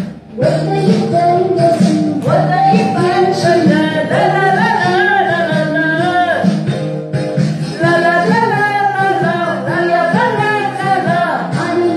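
Song with a singing voice over backing music. It picks up again about half a second in, after a brief drop in level.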